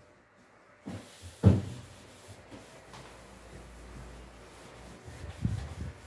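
Knocks and rubbing as a refrigerator is cleaned out by hand. There are a few knocks, the loudest about a second and a half in, with a steady hiss between them and another group of bumps near the end.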